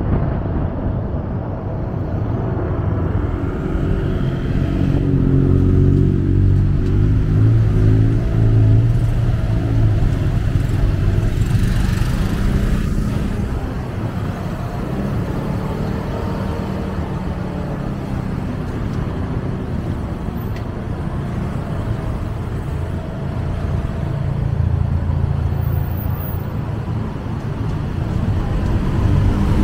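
Motorcycle engine running under the rider, its pitch rising and falling as it speeds up and slows in city traffic, with the noise of surrounding cars and motorbikes. A brief rush of noise comes about twelve seconds in.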